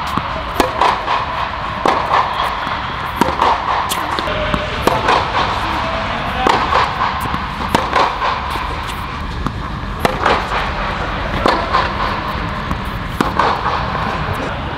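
Tennis rally: a Head Boom MP racquet and the opponent's racquet strike the ball, and the ball bounces on a hard court. The result is a string of sharp pops, about one every half second to second.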